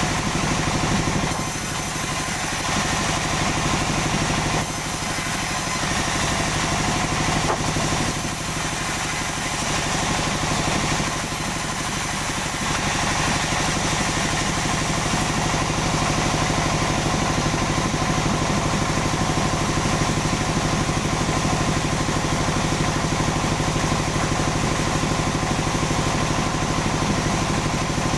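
Engine-driven sawmill running steadily, an engine hum under the saw. The sound dips briefly every three or four seconds in the first half, then holds steady.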